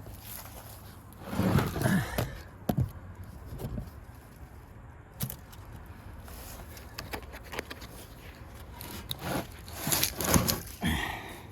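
A battery carrying strap being pulled and worked out of its slot in the battery case: scraping and sharp clicks in two spells, one about a second in and another near the end.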